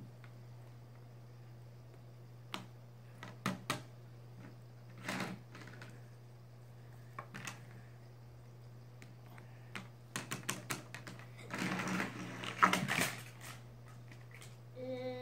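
Plastic toy train track pieces clicking and knocking as they are fitted and snapped together on a wooden tabletop: scattered single clicks, then a busier run of clattering about ten to thirteen seconds in.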